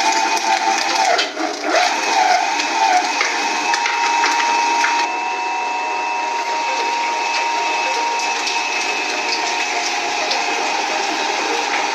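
Shredding machine running with a steady motor whine over continuous crackling and crunching. The whine's pitch dips and wavers for a couple of seconds early on, as if under load, then holds steady.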